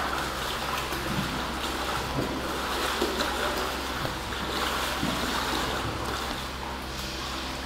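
Water splashing and lapping in a dog swimming pool as a pit bull paddles, over a steady low hum.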